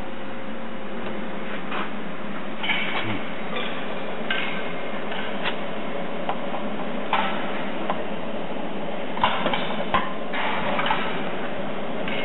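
Irregular light clicks and clinks of a cable plug being handled and fitted into the connector sockets of a metal injector control box, over a steady machine hum.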